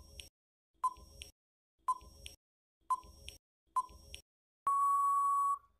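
Quiz countdown timer sound effect: short electronic beeps about once a second, each followed by a faint click, then one long steady beep near the end marking that the time is up.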